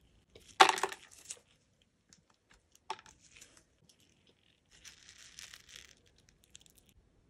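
Hard wax beads clattering into a plastic wax warmer pot in one short burst, then a single click about three seconds in. After that comes a soft rustle of fingers sifting through a tub of wax beads.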